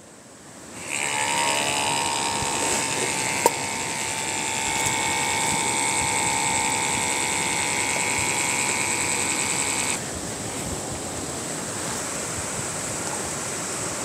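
Sonpresso portable electric espresso maker running its pump to brew a shot: a steady motor whir with a high whine, starting about a second in. The motor stops about ten seconds in, leaving a fainter hiss.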